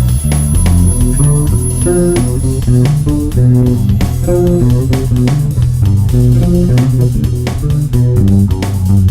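Guitar music: a solo line of single plucked notes played over a strong, moving low bass line.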